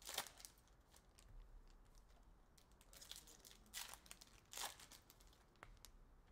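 Faint rustling and crinkling of trading-card packs and cards being handled, in a few short swishes.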